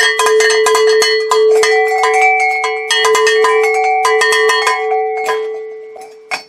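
Cowbell struck rapidly over and over, its metallic ring hanging on between strikes. The strikes thin out and die away a second or so before the end, followed by a single sharp click.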